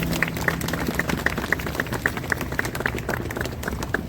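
A rapid, irregular run of sharp clicks, with a regular series of short, high ticks about four a second.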